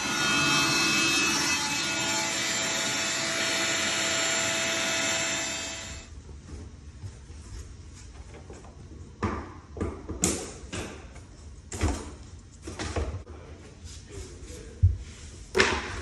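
A power tool runs steadily for about six seconds and then dies away. It is followed by irregular wooden clacks and knocks as loose vinyl plank flooring is pulled up off the subfloor and dropped.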